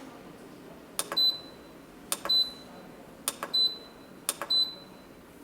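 Control-panel key of a desiccant wheel dehumidifier pressed four times, about once a second, each press a click followed by a short high beep acknowledging it, over a steady background hiss.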